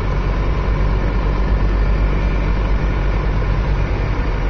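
Car driving along, its engine and tyre noise heard as a steady low rumble from inside the cabin.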